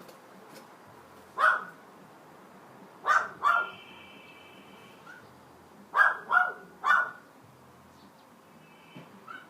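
Loud, short, bark-like animal calls that echo, coming singly, in a pair, then in a quick run of three. The caller is unidentified: the recorder took it for a bird.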